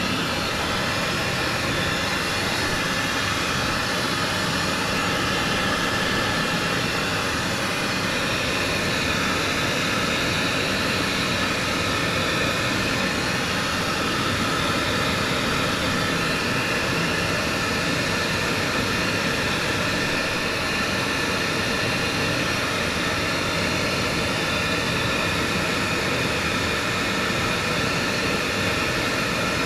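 High-velocity dog grooming dryer blowing air at a steady level, with a whine in the rush of air, as it dries a small dog's coat.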